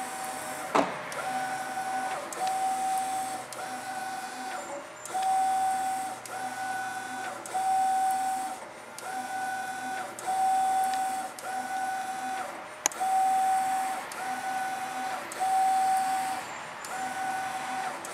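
Mimaki GP-604 garment printer printing on a t-shirt: the print-head carriage shuttles back and forth, each pass a steady motor whine lasting under a second, with short pauses between passes, repeating about once a second. A sharp click about a second in and another about two-thirds of the way through.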